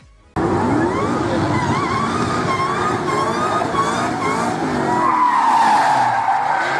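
Ford Mustang's tyres squealing with wavering pitch as the car slides sideways under power, losing traction, over a loud, high-revving engine. The squeal starts suddenly a moment in and holds on at a steady loudness.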